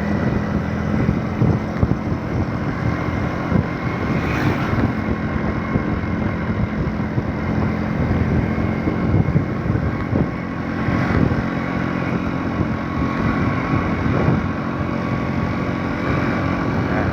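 A vehicle engine running steadily while travelling, with road and wind noise on the microphone.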